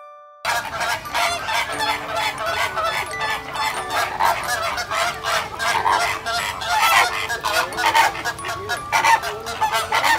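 A flock of flamingos honking, many goose-like calls overlapping in a constant clamour that starts about half a second in.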